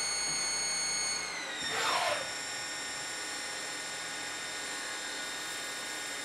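CNC lathe running with a steady high spindle whine that drops slightly in pitch about a second and a half in. A short hissing burst of cutting comes about two seconds in, then the whine carries on steadily as the tool machines the spinning metal part.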